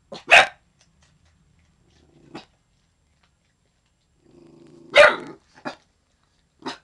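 Young dog giving guarding alert barks: a quick double bark, then single sharp barks spaced a second or more apart. A low growl rises into a bark twice, the longer one running about a second into the loudest bark about five seconds in.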